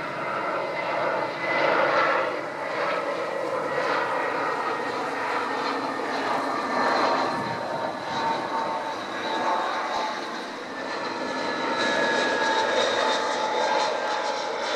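Airbus A320 jet engines on final approach: a steady rushing noise with a high whine that drifts slowly down in pitch as the airliner passes.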